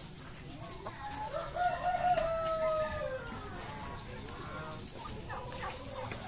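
A rooster crowing once: a long call of about two seconds, starting about a second in and falling in pitch at its end. A few short chicken clucks follow near the end.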